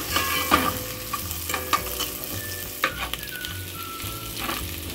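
Garlic-ginger paste sizzling in a little hot oil in a stainless steel pan as it fries to a light golden, stirred with a metal spoon that scrapes and clicks against the pan several times.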